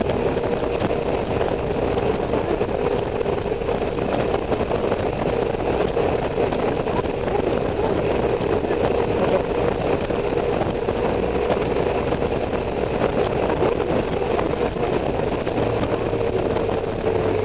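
Honda Silverwing motorcycle cruising at steady highway speed: an even engine drone mixed with wind and road noise rushing past, with no change in pace.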